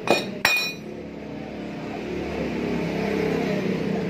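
Two sharp metal clanks near the start, then the electric motor of a belt-driven compressor-cutting machine starting up and humming steadily, growing louder over the next few seconds.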